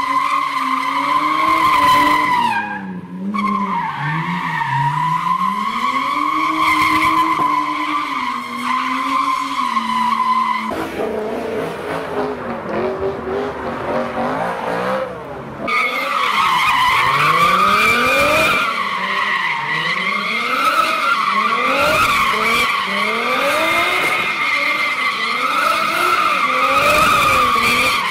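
Car tyres squealing in a sustained high screech as cars drift, over engines revving up and down. The sound changes abruptly about 11 and 16 seconds in, and in the last part the engine revs climb again and again in quick succession under a wavering squeal.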